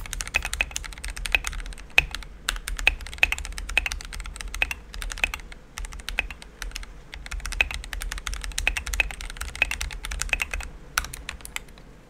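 Fast typing on an Epomaker GK108s full-size hotswap mechanical keyboard: a dense, uneven run of key clacks with a low rumble beneath them, stopping shortly before the end.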